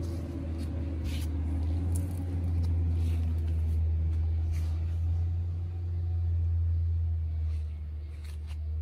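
A steady low rumble, with a few light clicks and rustles on top.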